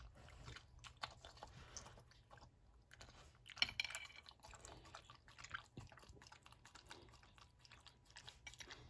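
A small dog eating from a plate: faint, irregular chewing and mouth clicks, with one louder click about three and a half seconds in.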